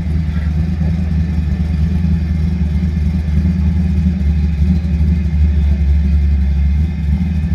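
A race sedan's engine idling with a steady low rumble.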